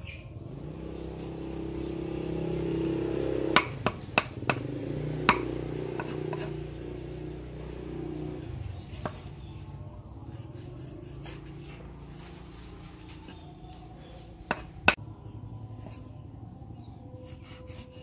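Steel cleaver chopping small fish on a round wooden chopping block: sharp chops, a quick run of about five a few seconds in, one more midway and two close together later, with lighter taps and scrapes between. A low rumble swells and fades over the first half.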